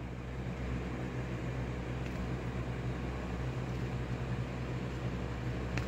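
Steady low background hum with a faint hiss over it.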